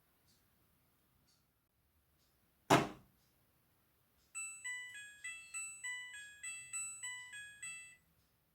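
A single thunk, then the electronic jingle of a Midea front-loading washing machine: a short beeping melody of about a dozen notes over some four seconds.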